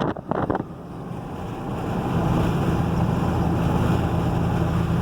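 Vehicle engine and road noise heard from inside the cab. It dips briefly near the start, then rises over a second or so as the vehicle speeds up, and settles into a steady low drone.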